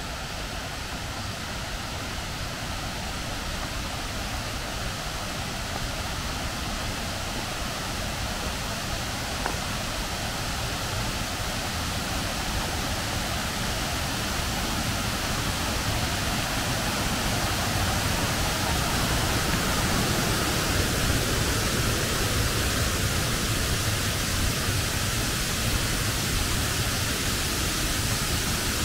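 Steady rushing of a river flowing beside the path, an even hiss that slowly grows louder over the first two-thirds and then holds.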